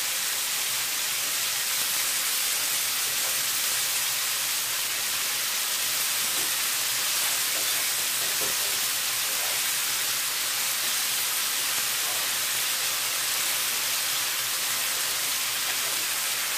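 Sliced champignon mushrooms and onion sizzling steadily in vegetable oil in a frying pan.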